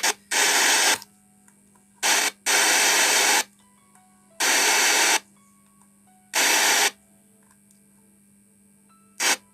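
Home theater speakers blasting loud bursts of static hiss that switch on and off abruptly, about six times, over a faint steady hum: the repaired amplifier channel giving output again after a jumper was fitted to the faulty channel's input.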